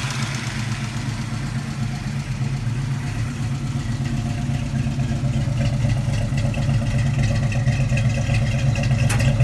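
Ford 5.0 L (302) small-block V8 of a 1989 Mustang LX idling steadily, growing gradually a little louder toward the end as the exhaust tailpipe is neared.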